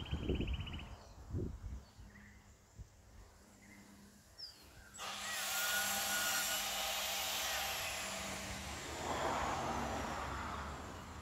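A nearby motor-driven power tool starts suddenly about five seconds in and runs with a steady hiss and a high whine that slowly falls in pitch, fading near the end.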